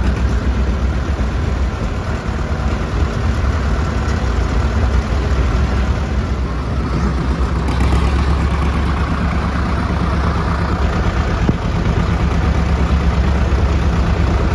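Tractor engine running steadily at a low, even speed, a deep continuous rumble heard up close, a little stronger in the second half.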